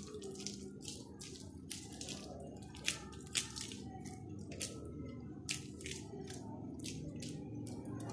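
Moist potato kabab mixture squelching and clicking in irregular little bursts as it is pressed and patted into a flat patty between plastic-gloved hands. A steady low hum sits underneath.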